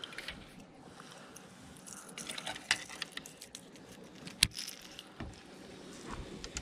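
Scattered light clicks and knocks of fishing tackle being handled in a boat, with a cluster of small clicks partway through and one sharper knock a little past the middle.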